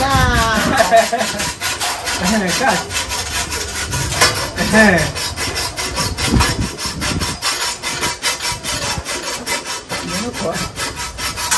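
Rapid, evenly repeated rasping strokes of a hand tool working metal, like filing or hand-sawing, several strokes a second without a break.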